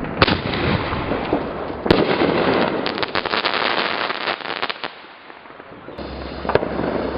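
Consumer fireworks going off: a sharp bang, then a louder one about two seconds in, followed by a couple of seconds of rapid crackling that dies away, and another bang near the end.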